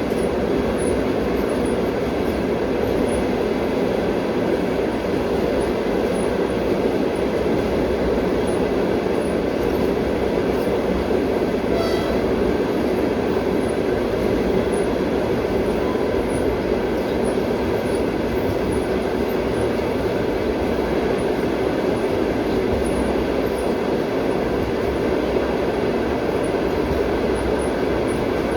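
Passenger train heard from on board while running: the steady rumble of the carriage's wheels on the rails. A brief high tone sounds once, about twelve seconds in.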